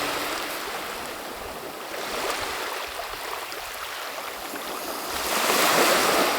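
Sea surf washing on a beach: a steady rush of noise that swells to its loudest about five seconds in.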